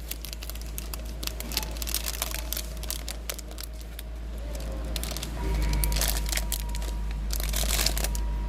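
An ice cream bar's wrapper crinkling and rustling as it is torn open and pulled off, with a steady low hum underneath that grows louder about halfway through.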